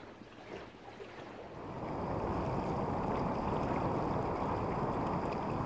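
Rush of water along a sailing yacht's hull mixed with wind noise as the boat sails. It builds up about two seconds in and then holds steady.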